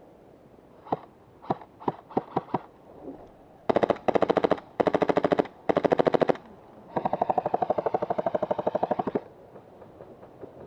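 Airsoft guns firing: about half a dozen single shots, then three short full-auto bursts and a final longer burst of about two seconds.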